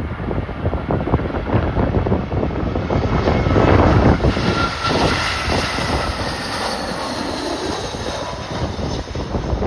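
Jet airliner engines passing, swelling to their loudest about four seconds in with a faint whine, then easing off. Strong gale-force wind buffets the microphone throughout.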